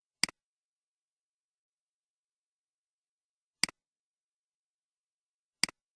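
Three sharp double clicks against silence: one about a quarter second in, one a little past three and a half seconds, and one near the end.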